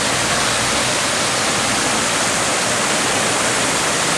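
Water pouring steadily over the millpond's stone dam spillway: a loud, even rush that does not let up.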